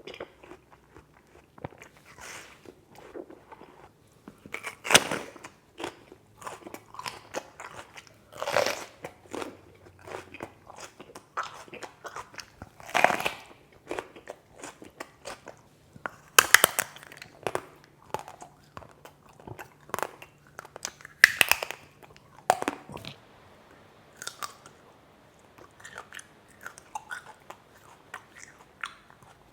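Close-miked eating: several loud crunchy bites a few seconds apart, with quieter crisp chewing in between. The chewing is softer over the last few seconds.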